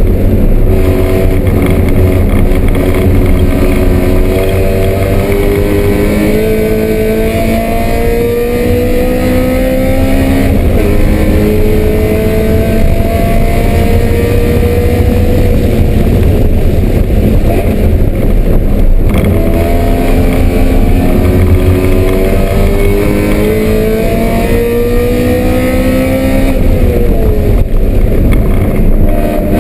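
BMW M3 race car engine pulling hard through the gears on a circuit. Its pitch climbs long and steadily, drops back at each upshift and climbs again, with a quick fall in pitch shortly before the end as the car slows and then accelerates again.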